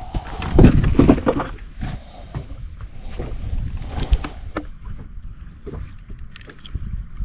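Knocks and rattles of handling in a fishing boat, loudest in a burst about a second in, then scattered sharp ticks, over a steady low rumble of wind on the microphone.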